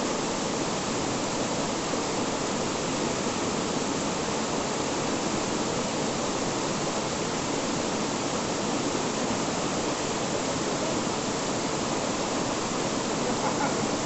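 Waterfall running: a steady, even rush of falling water.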